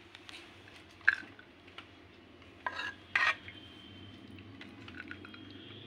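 Steel ladle clinking and scraping against metal cookware as curry is served out. A few short sharp clinks, one about a second in and two close together around three seconds in, over a low steady hum.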